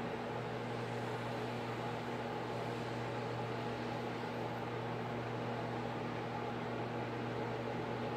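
Steady hum with an even hiss underneath, unchanging throughout: the room tone of a running appliance.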